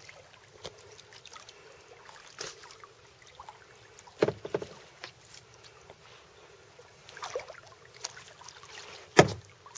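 Kayak paddle strokes in calm lake water: irregular dips, splashes and drips. Two louder, sharper sounds stand out, one about four seconds in and one near the end.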